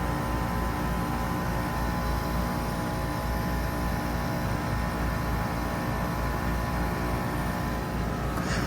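2022 3-ton Trane XR14 heat pump outdoor unit running: a steady low hum with several steady tones from the compressor and fan, and a brief rising hiss near the end.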